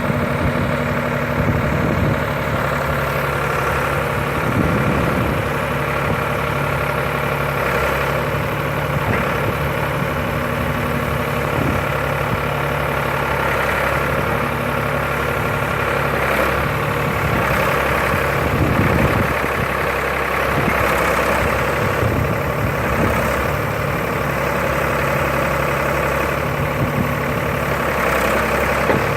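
Backhoe's diesel engine running steadily, with a few brief knocks over it.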